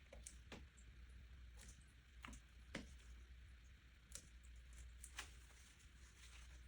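Near silence: a low room hum with a few faint, scattered clicks and taps.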